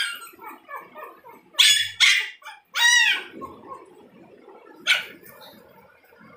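Shih Tzu puppies yipping and barking in short, high-pitched calls: a cluster in the first three seconds and one more about five seconds in. The breeder takes it as the puppies asking to be let out at feeding time.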